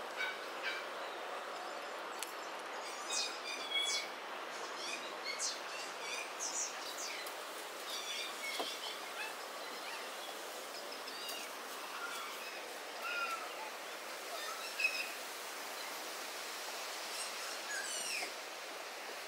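Birds chirping: many short, scattered calls over a steady background hiss of outdoor ambience.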